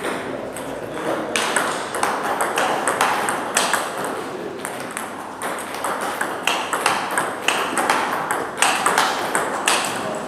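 Table tennis rally: the celluloid-type ball clicking sharply off the bats and bouncing on the table in quick, uneven succession, one bat faced with Sauer & Tröger Hass 2.1 mm short pips. More ball clicks from a neighbouring table mix in.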